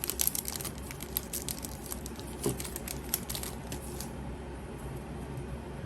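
Crinkling and crackling of a foil Yu-Gi-Oh! booster pack wrapper being handled and opened, a quick run of small crackles that stops about four seconds in.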